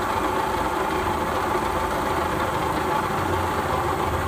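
Small electric snail-tail-cutting machine running steadily and smoothly, its belt-driven cutter drum turning with an even mechanical whirr and a faint steady tone.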